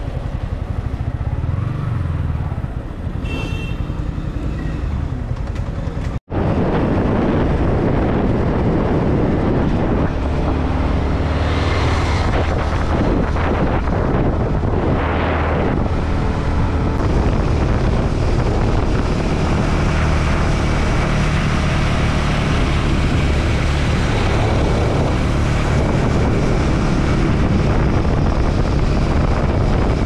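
Yamaha motorcycle engine ticking over quietly, then, after a sudden cut about six seconds in, the bike running at road speed, louder and steady, with wind rushing over the microphone.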